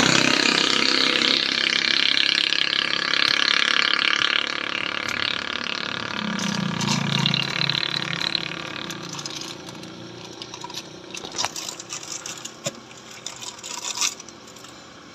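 A loud steady rushing noise with a faint whine in it that fades out after about nine seconds, then plastic sheeting crinkling and crackling in short bursts as hands work it around a metal hub.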